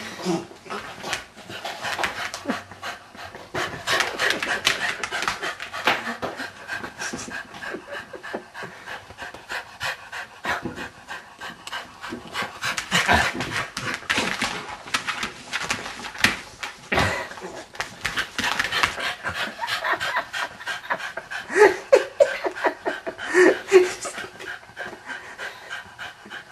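Cocker spaniel panting quickly and steadily, with a few short louder sounds near the end.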